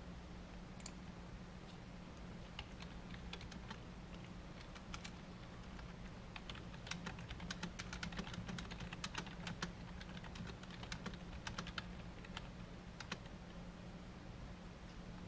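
Typing on a computer keyboard: irregular key clicks, sparse at first and thickest in the middle stretch, over a steady low hum.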